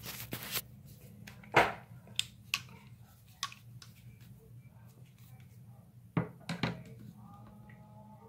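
Scattered clicks and knocks of hand tools and pliers against a bathroom sink and faucet body while the pliers are set on the faucet cartridge to pull it out, with one sharp knock about a second and a half in and a few more near the end. A steady low hum runs underneath.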